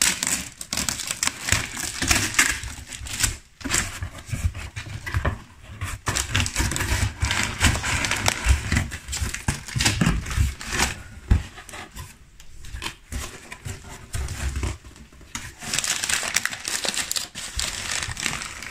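Packaging crinkling and rustling as it is handled and pulled away from a potted palm, irregular and continuous, with occasional dull knocks.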